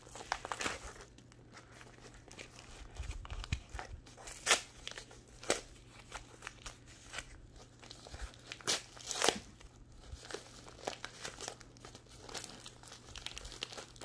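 Tape-wrapped package being picked at and torn open by hand: irregular crinkling and short rips of layered tape and plastic, with sharper tears about four and a half and nine seconds in.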